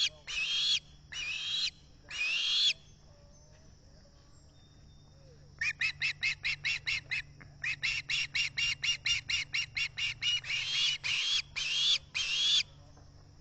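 Osprey calling in loud, shrill whistled calls: a few half-second calls, a pause of about three seconds, then a fast run of short chirps at about six a second, ending in three longer calls. These are food-begging calls.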